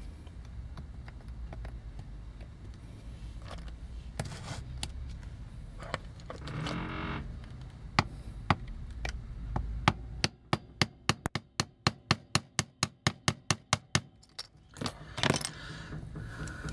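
Small metal clicks and clinks of tools and toy parts being handled, then a run of quick, evenly spaced clicks, about six a second, lasting some four seconds.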